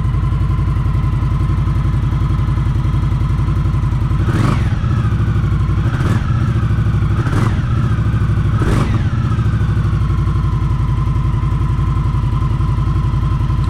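Indian Scout Bobber's V-twin idling through its stock exhaust mufflers, blipped in four quick revs between about four and nine seconds in, each falling straight back to a steady idle.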